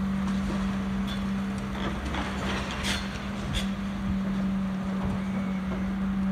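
Caterpillar excavator's diesel engine running with a steady low hum during demolition work, with a few scattered knocks and clatter from the site.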